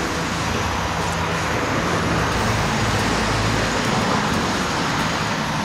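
Outdoor propane burner running at full flame under a wok of boiling water, making a steady loud rushing noise with a faint low hum beneath it.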